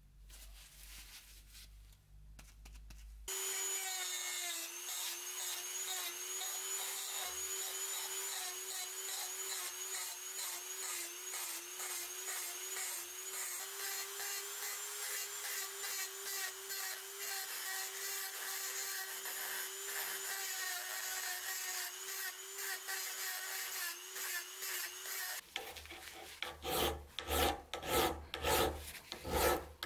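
A handheld Dremel-type rotary tool running at a steady high pitch while its small bit grinds rust out of the eye of a forged steel hammer head. It cuts off abruptly near the end, and a flat hand file then rasps across the steel head in strokes about three every two seconds.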